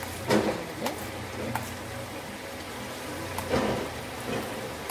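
A metal spoon knocking and scraping a few times against a small steel bowl and the aluminium pot as cashew paste is spooned onto the chicken, over a steady low hiss.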